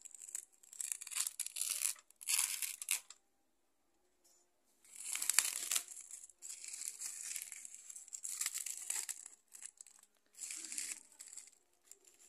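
Tape-wrapped woven plastic sack being torn open by hand: ripping and crinkling plastic in a series of bursts, with a pause of about two seconds near the middle.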